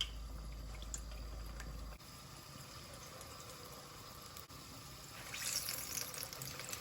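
Urad dal vadai frying in hot oil: a faint sizzling of the bubbling oil, brightening into a louder crackle about five seconds in.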